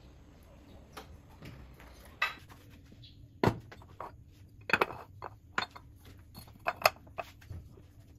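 Kitchenware being handled: a string of separate sharp knocks and clinks of pots and dishes, the loudest about three and a half, five and seven seconds in.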